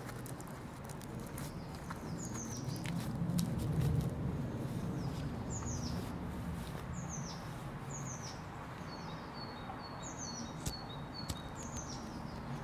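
Bird song outdoors: a short high call that sweeps downward, repeated about every one and a half seconds, joined near the end by a quick run of short, even chirps. Under it a steady background hiss with a low rumble that swells briefly about four seconds in.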